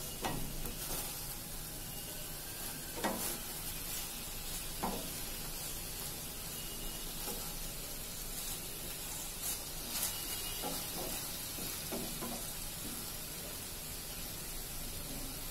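Marinated chicken leg pieces sizzling in mustard oil in a frying pan. A wooden spatula scrapes and knocks against the pan several times as the pieces are turned over.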